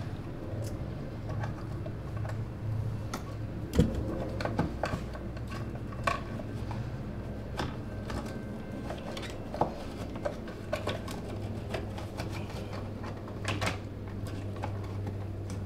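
Scattered small clicks, taps and knocks from hands working electrical cable and reaching into a hole cut in drywall, with one sharper knock about four seconds in, over a steady low hum.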